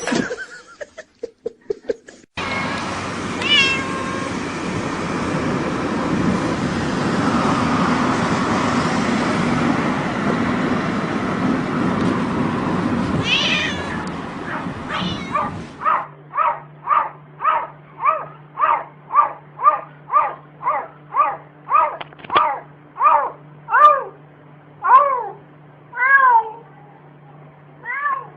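A domestic cat meowing over and over, about two meows a second for the last twelve seconds or so, the calls dropping in pitch near the end. Before that, a steady rushing noise with a couple of meows in it.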